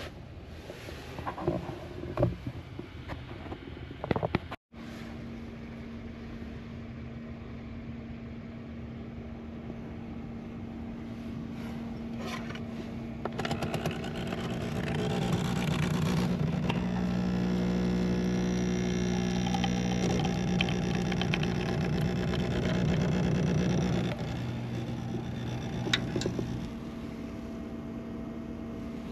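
Handling and fabric rustling at first, then a portable coffee maker running with a steady electric hum. The hum grows louder and fuller for about ten seconds in the middle, then eases back.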